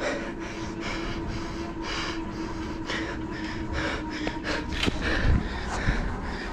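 Quick, rhythmic heavy breathing of a cyclist working hard at threshold effort on a stationary exercise bike, over the steady whir of the bike's flywheel.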